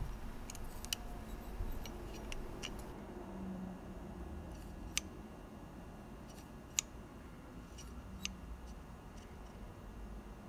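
A handful of faint, sharp metallic clicks as a dial caliper and a small steel part are handled and the caliper jaws are closed on the part, two of them louder about five and seven seconds in, over a low steady hum.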